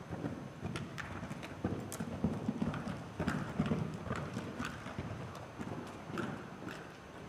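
Hoofbeats of a Welsh pony cantering on the sand footing of an indoor arena: a run of low thuds at an even rhythm, with light clicks above them.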